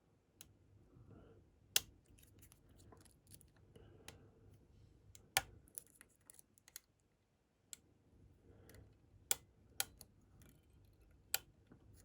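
Small sharp metallic clicks and faint scraping of a lock pick and tension wrench working inside a Medeco cam lock, about five louder clicks among smaller ones, spread irregularly.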